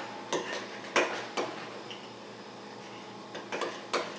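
A stirring utensil knocking and clinking against a mixing bowl while flour is stirred into bread dough: a few sharp, irregular knocks, with a quick cluster of them near the end.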